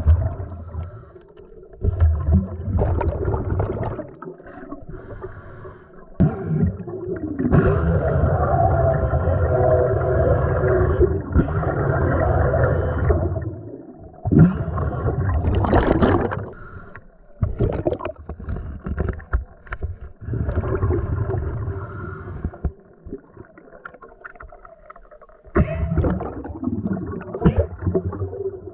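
Underwater recording of a pneumatic straight die grinder run off a scuba regulator's hose, with a long run of several seconds in the middle giving a wavering whine as it grinds against rock. Before and after come shorter gurgling bursts of air bubbles from the regulator and the tool's exhaust.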